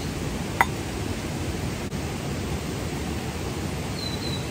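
Steady rushing of a forest stream, with one sharp click about half a second in and a few short bird chirps near the end.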